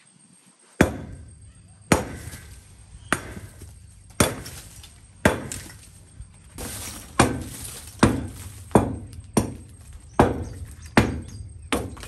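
A long-handled hand tool striking hard against the floor of a chicken house again and again, about a dozen chopping blows roughly one a second, each ringing briefly.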